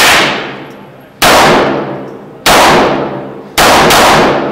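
Handgun shots fired one at a time, about a second apart, four in the span with the last two close together. Each shot is very loud and has a long echoing tail.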